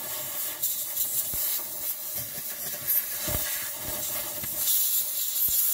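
Can of compressed air hissing through its thin straw nozzle, blowing compacted fabric lint out from under the removed throat plate of an industrial straight stitch sewing machine, with a few light knocks.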